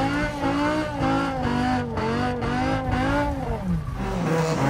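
BMW M5 E60 engine revving up and down in quick swings as the car is driven sideways on wet asphalt, heard from inside the cabin. The revs climb sharply near the end.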